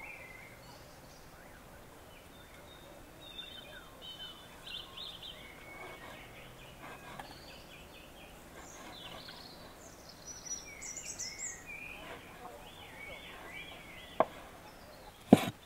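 Small birds chirping outdoors, with two loud, sharp knocks near the end.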